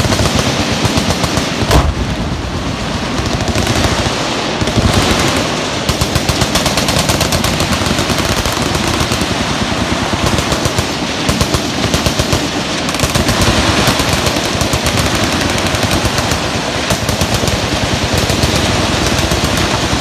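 Continuous automatic gunfire from machine guns on a firing line, the bursts overlapping without a break, with one louder bang about two seconds in.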